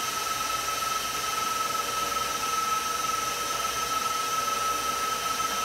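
KitchenAid stand mixer motor running steadily with an even, high whine, driving the pasta press attachment as it extrudes macaroni dough.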